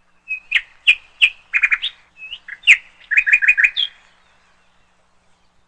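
A bird chirping: a rapid series of short, sharp chirps over about three and a half seconds, dying away about four seconds in.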